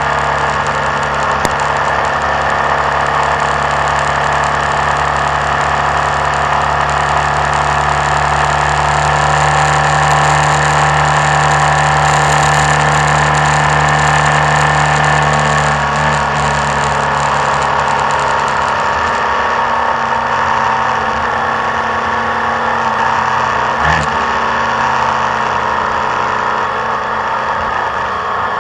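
Motorcycle engine running steadily as the bike descends a twisting mountain road, with wind noise on the camera microphone. The engine note drops back a little after halfway. There is a brief knock about three-quarters of the way through.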